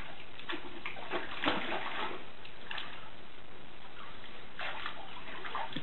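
Dogs splashing in the water of a plastic kiddie pool, pawing and wading: irregular splashes and sloshing over a steady hiss.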